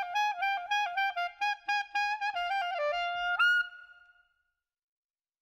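Short outro jingle: a single instrument playing a quick, bouncy melody that ends on a higher held note and fades out about four seconds in.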